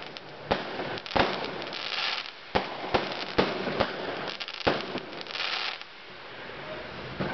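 Fireworks going off: about seven sharp bangs at irregular intervals, with two stretches of hissing crackle, one about two seconds in and another a little past five seconds.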